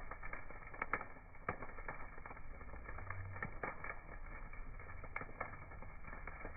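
Campfire burning with a steady crackle and irregular sharp pops, a few of them louder than the rest.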